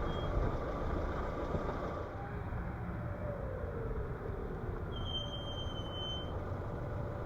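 Lada Vesta driving along with steady road and running noise, and its brakes squealing once: a thin, high, steady squeal starting about five seconds in and lasting just over a second.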